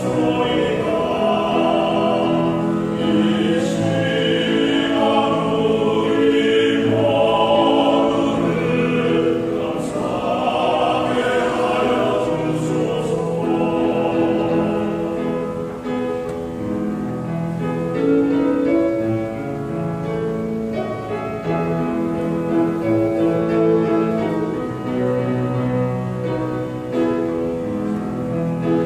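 Small church vocal ensemble singing a Korean gospel hymn in harmony, in long held notes.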